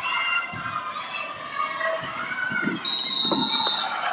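Basketball game noise with thuds of the ball and feet on the court, then about three seconds in a referee's whistle blows one long steady blast of nearly a second, stopping play as a player goes down on the court.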